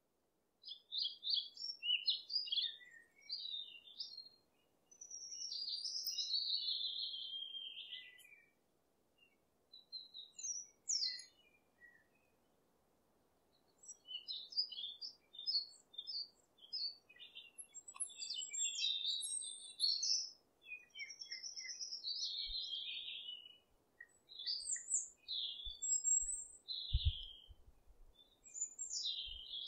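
Songbirds singing: bursts of quick high chirps and warbled phrases with short pauses between them, and a few faint low thumps near the end.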